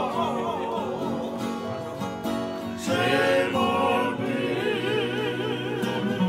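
A group of men singing together in held, wavering notes, accompanied by strummed acoustic guitar and ukulele.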